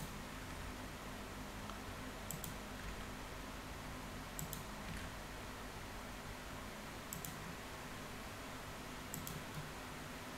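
Computer mouse and keyboard clicks: short, sharp double clicks about every two seconds, four times, over a faint steady hum.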